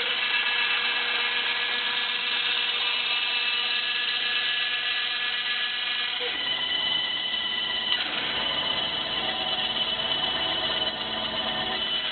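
Electric saw running steadily with a multi-tone motor whine while cutting wood, with a slight shift in its sound about six to eight seconds in.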